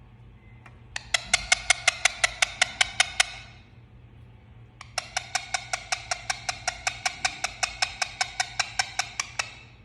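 Indian ringneck parrot making kissing sounds: quick, sharp smacking clicks at about six a second, in two runs, a short one of a couple of seconds, then after a pause of about a second and a half a longer run of about four seconds.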